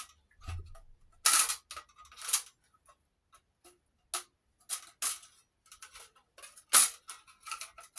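Metal parts of a recessed light fixture clicking and clanking as they are pried and pulled apart by hand: irregular sharp clicks and knocks, a few louder than the rest, with short quiet gaps between.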